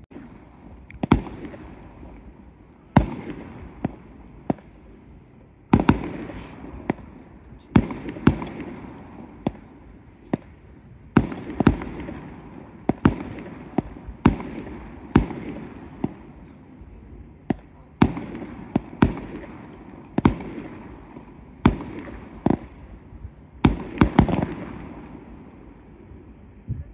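Fireworks display: aerial shells bursting in a steady run of sharp bangs, roughly one a second and sometimes two close together, each followed by a rumbling echo that fades.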